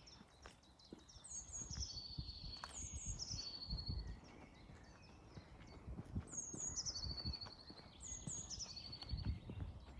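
A songbird singing short, quick trilled phrases that step down in pitch, four phrases in two pairs, over the soft, irregular thuds of a walker's footsteps.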